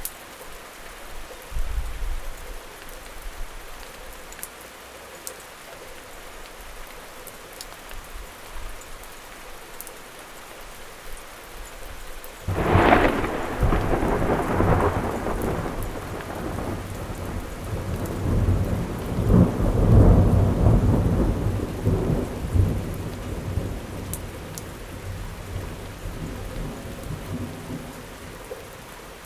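Steady rain falling, with a sudden thunderclap about twelve seconds in that rolls on as rumbling thunder for some ten seconds before fading back under the rain.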